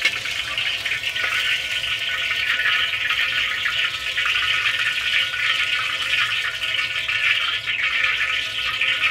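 Battered chicken pieces sizzling and crackling in hot deep-frying oil in a wok during the second fry, a steady, dense crackle as they are lifted out with a wire spider strainer.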